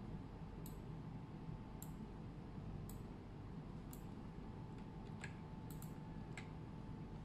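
Scattered sharp clicks from a computer mouse and keyboard, roughly one a second, over a faint steady background hum.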